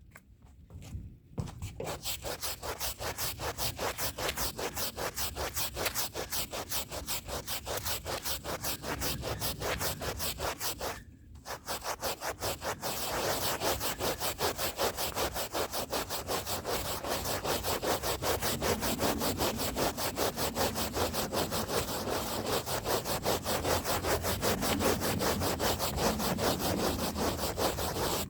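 A stiff hand brush scrubbing a rug's fibres in rapid back-and-forth strokes, about four or five a second, with a short pause partway through.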